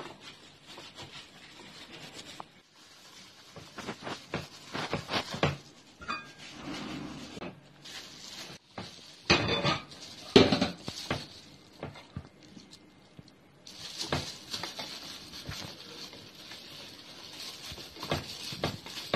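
Plastic cling wrap and a plastic-covered hand rustling and crinkling as rice is pressed into a cling-wrapped metal muffin tin, with scattered clicks and knocks against the tin. Two louder knocks come about halfway, and the rustling turns steadier near the end.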